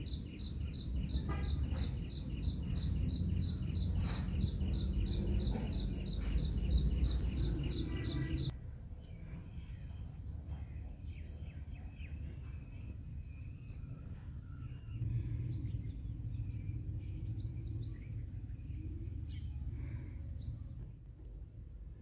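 Birds calling outdoors over a low wind rumble on the microphone. For the first third, one bird repeats a high chirp about four times a second, and this stops abruptly. Then scattered short chirps follow.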